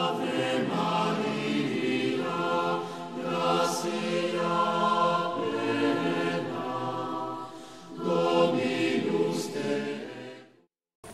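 A group of voices singing a slow hymn with long held notes. The singing dips briefly about eight seconds in, swells again, and fades out near the end.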